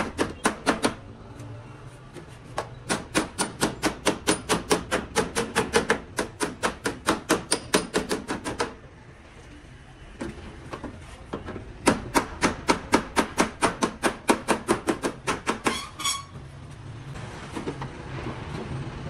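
Steel slide-hammer dent puller worked against a car door panel in quick runs of sharp metallic knocks, about five a second, pulling out a dent. There are three runs with short pauses between, and a brief scrape ends the last one.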